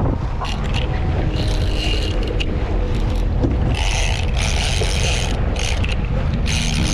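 Fishing reel's drag screaming as a fish strips line off on a sudden strike. It comes in several buzzing runs, the longest in the middle and another starting near the end, over the boat's steady low engine rumble.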